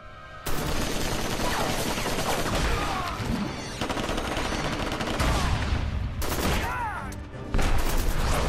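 Automatic gunfire: several guns fire in a long, rapid volley that starts about half a second in, with short lulls near four and seven seconds.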